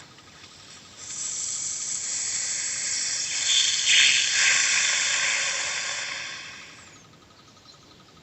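A steady hiss lasting about six seconds, swelling to its loudest about four seconds in and then fading away. Under it runs the faint, rapid ticking of the Peugeot 406 Coupé's idling engine, the hydraulic lifters tapping.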